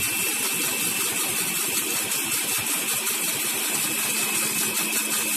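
Electric blender motor running steadily, with a thin high whine over its hum, while soybean oil is drizzled in to emulsify egg into mayonnaise.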